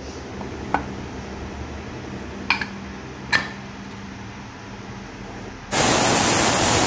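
Pressure cooker on a gas stove: a few light metal clinks, then a loud, steady hiss of steam venting from the cooker that starts suddenly near the end, a sign the cooker has come up to pressure.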